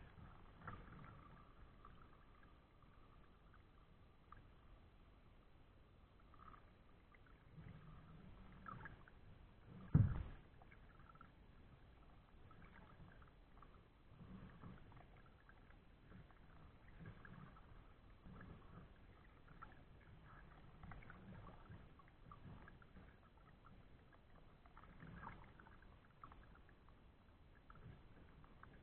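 Faint sounds of a kayak being paddled: soft, irregular water splashes and drips from the paddle, with one sharp knock about ten seconds in.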